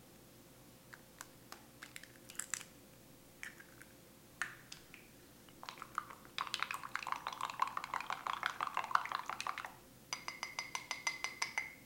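A fork beating an egg in a bowl. Scattered taps come first, then a few seconds of rapid clicking and sloshing, and near the end quick, even strikes against the bowl that ring, about eight a second.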